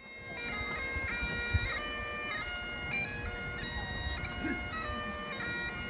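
Bagpipes playing a traditional tune: a steady drone under a chanter melody that steps from note to note, fading in at the start.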